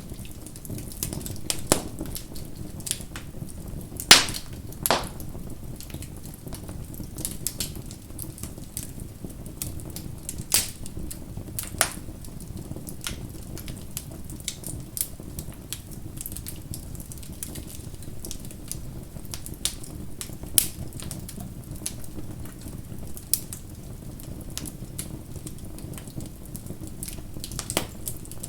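Bonfire crackling: a steady low rumble of burning with irregular sharp pops and snaps of burning wood, the loudest a pair of pops about four and five seconds in.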